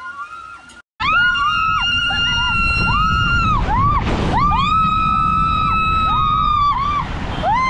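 Two riders screaming long, high held screams while sliding down a water slide on an inflatable tube, over the low rushing of water and the tube on the slide, starting about a second in.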